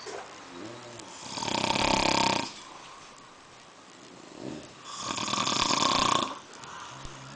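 Two men snoring: two long, loud snores about three and a half seconds apart, with softer snoring between them.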